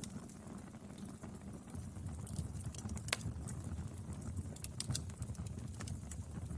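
Wood fire burning: a low steady rumble of flames with scattered sharp crackles and pops of burning firewood, the loudest snap about three seconds in and a few more close together near five seconds.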